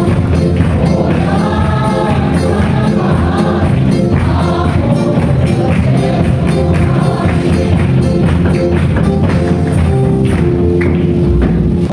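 A congregation singing a gospel hymn together, with hand-clapping and a steady percussion beat.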